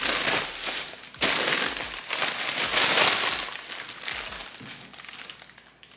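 Plastic grocery bags and a bagged pack of broccoli florets crinkling and rustling as they are handled, with sharp crackles, dying away near the end.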